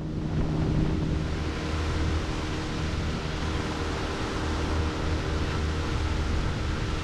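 Honda BF15 four-stroke outboard motor pushing an inflatable boat at speed: a steady low drone under a constant rush of wind and water.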